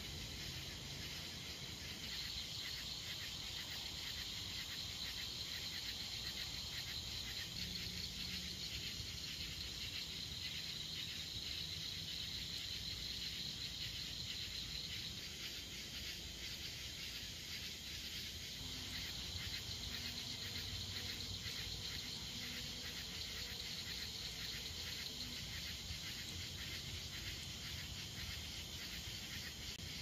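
A chorus of night insects trilling steadily, a high, fast-pulsing buzz that runs on without a break.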